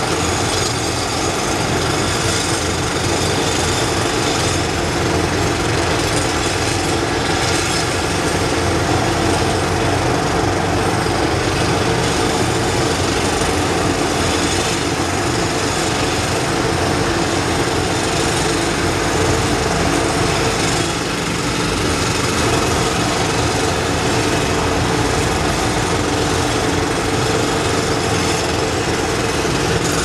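Several jackhammers hammering away together without a break, loud and steady, working on the concrete of an elevated parking structure under repair.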